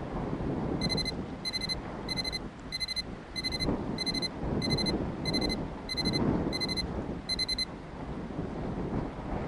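Timer alarm beeping eleven times, about three beeps every two seconds, each a short high-pitched electronic beep, signalling that eleven minutes have elapsed. Under it runs a steady low rumbling noise.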